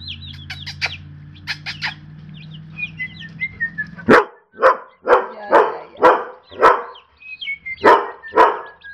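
Broiler chicks peeping steadily in a brooder. About four seconds in, a dog starts barking repeatedly, about two barks a second and louder than the chicks.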